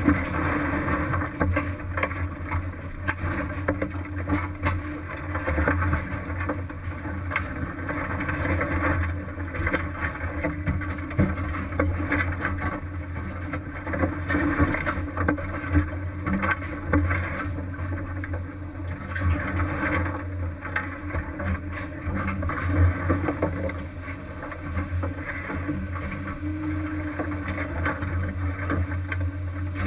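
Fishing boat's engine running steadily, with frequent knocks and clatter of gear on deck.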